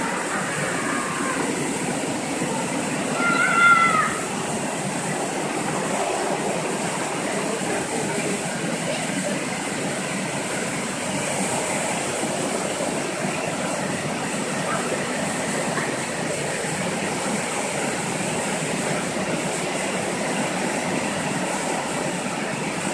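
Automatic rollover car wash at work: rotating brushes scrubbing a car under water spray, a steady wash noise throughout. A short high-pitched sound stands out about three and a half seconds in.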